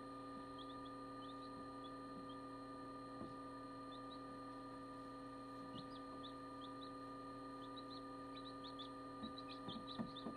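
Newly hatched chicks peeping faintly in short high chirps, more often toward the end, over the steady hum of an incubator. A few soft taps come near the end.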